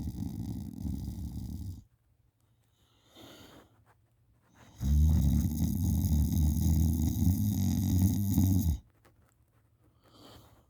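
A person in deep sleep snoring: one snore trails off about two seconds in, a faint breath follows, then a long, loud snore of about four seconds, and a soft breath near the end.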